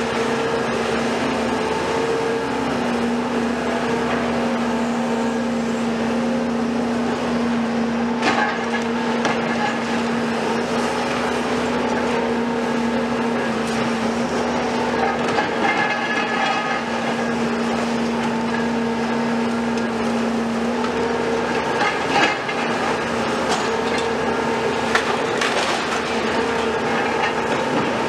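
Cat 374F ultra-high-demolition excavator and Volvo EC250 excavator running under load, a steady engine and hydraulic drone with a held humming tone that drops away about three-quarters of the way through. Over it, concrete and debris crunch and crack, with a few sharp knocks.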